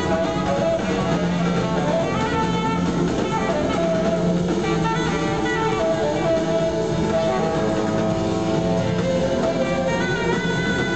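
Live band playing a song: electric guitar, drum kit, saxophone, trumpet and trombone together, heard from the audience in a theatre hall.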